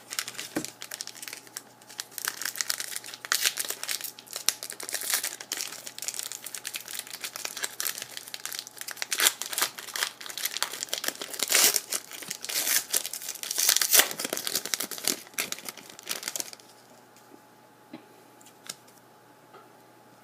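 Plastic hockey card pack wrapper being torn open and crinkled, a dense run of irregular crackling that stops about 16 seconds in, followed by a few light clicks.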